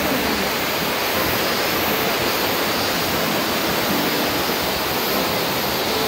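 River running high and fast over rocky rapids, a steady, unbroken rush of water.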